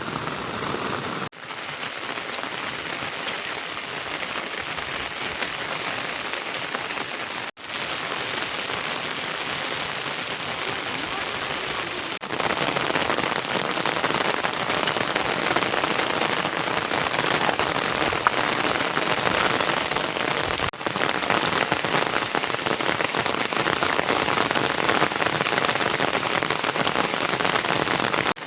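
Steady rain falling, a dense even hiss that gets louder about halfway through, broken by a few split-second dropouts.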